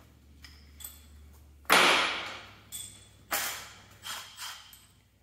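Cordless impact driver running bolts tight: one long burst of hammering, then four shorter bursts as the bolts seat.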